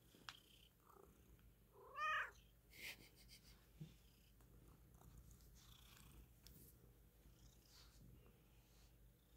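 Calico cat purring faintly and steadily, with one short meow that rises and falls in pitch about two seconds in.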